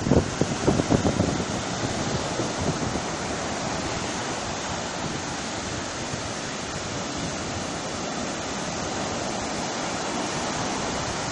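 Sea surf breaking on the shore as a steady rush. Wind buffets the microphone in the first second or so.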